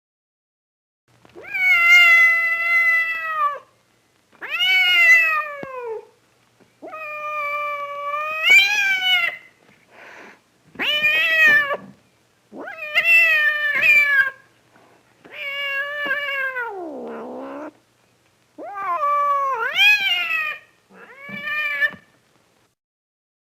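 A domestic cat howling: a string of about nine drawn-out yowls, each one to two seconds long, with short pauses between. The calls bend up and down in pitch, and one slides down low in the middle.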